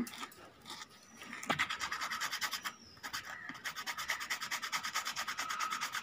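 Sandpaper rubbed rapidly back and forth over a rubber bicycle inner tube, roughening the surface around the puncture for the patch. The quick, even scraping strokes start about a second and a half in, with a brief pause about halfway.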